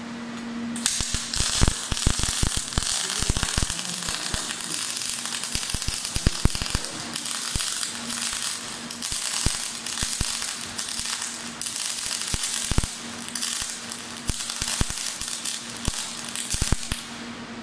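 Gas-shielded MIG welding arc striking about a second in and crackling steadily, with frequent sharp pops as it throws spatter, then cutting off near the end.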